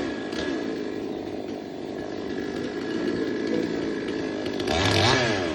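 Chainsaw engine running, revving up and dropping back once near the end.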